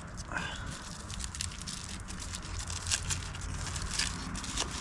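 Campfire crackling, with irregular sharp pops from the burning wood.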